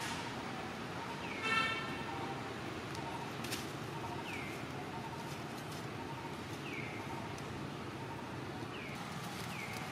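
A baby macaque gives a short pitched squeal about one and a half seconds in. Around it runs a steady outdoor hiss, with a bird calling in short falling chirps every couple of seconds.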